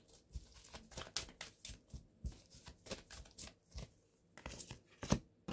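A deck of reading cards being shuffled and handled: soft, irregular flicks and taps of card against card, with a sharper tap about five seconds in.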